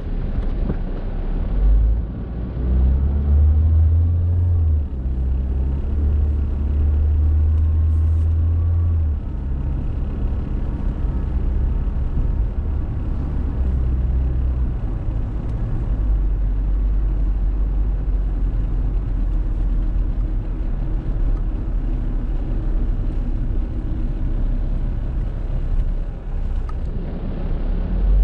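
Car driving along a smooth road, heard from inside the cabin: a steady low rumble of road and engine noise that swells and eases a little as the car goes.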